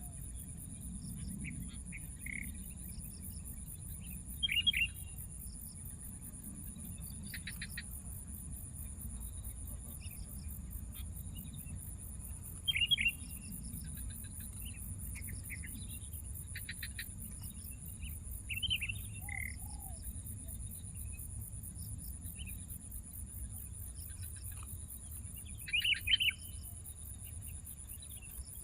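Insects trill steadily and high-pitched throughout, pulsing rapidly. Over this, birds give short chirping calls, with four louder bursts spread evenly across the stretch.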